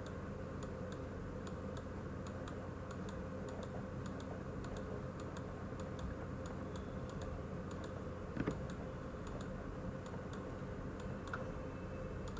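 Faint, irregular clicking at a computer, over a steady background hum, with one slightly louder click about eight seconds in.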